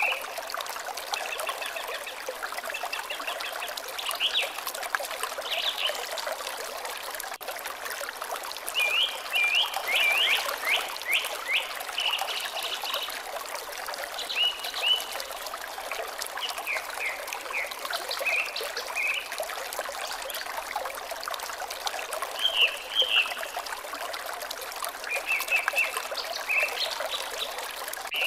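Water trickling steadily, with birds singing over it in short, high chirps that come and go, including a quick run of repeated notes about a third of the way in.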